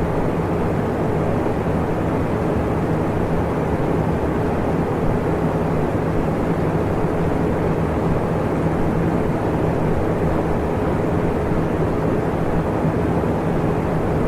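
Electric fan running steadily: an even rush of air, mostly low and mid in pitch, with a faint steady motor hum underneath.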